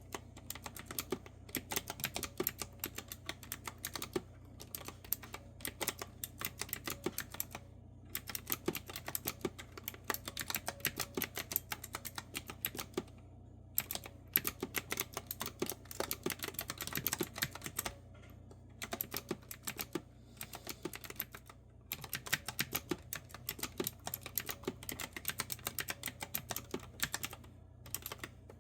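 Clicky keys of a retro-style keyboard with round keys typed at a steady pace: fast runs of crisp clicks, broken by short pauses several times. A steady low hum underneath.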